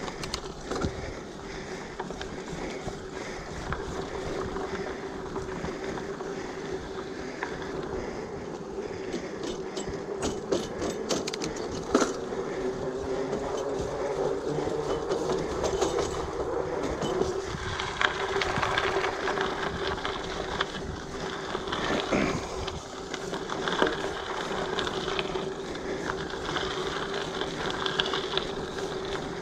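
Giant Fathom mountain bike rolling along a trail: knobby tyres on dirt and then over a metal mesh boardwalk, with a steady hum and the bike rattling. A few sharp knocks sound as it goes over bumps, and a brighter hiss comes in past the middle.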